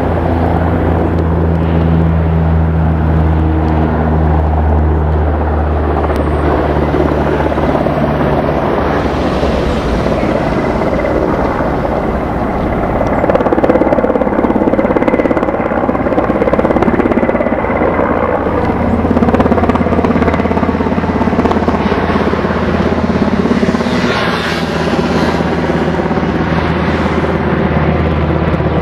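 Loud, steady low engine drone under a rushing, wind-like noise; the drone's pitch shifts about a third of the way in and settles back again later.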